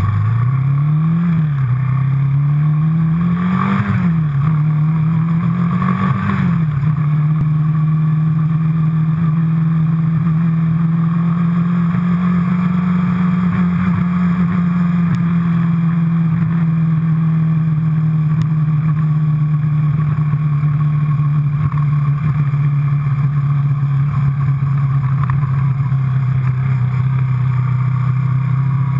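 Yamaha quad bike engine heard from the handlebars while riding: the engine note climbs and drops back three times as it picks up speed, then settles into a steady drone at cruising speed.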